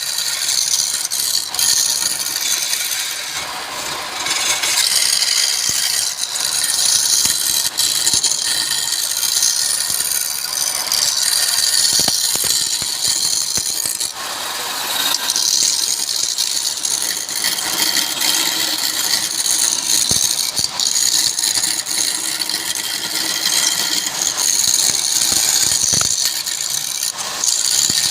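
Wood lathe running while a turning tool cuts the spinning wood: a steady, hissing scrape that swells and eases as the tool is worked, with a few sharp clicks.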